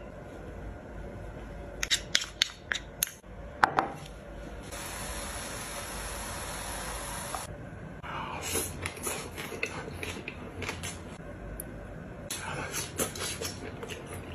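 Close-up food-handling and eating sounds: a run of sharp clicks from a spoon and tin, a few seconds of steady hiss, then bursts of crackly chewing.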